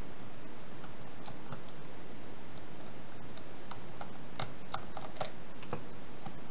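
Scattered small clicks and taps of a precision screwdriver working the screws in a plastic Bluetooth speaker's front, then of the casing being handled, with a quick run of sharper clicks in the middle. A steady hiss lies underneath.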